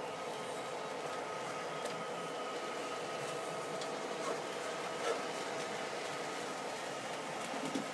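Model trains running on the layout: a steady mechanical hum with a faint, steady high tone, and a couple of small clicks about four and five seconds in.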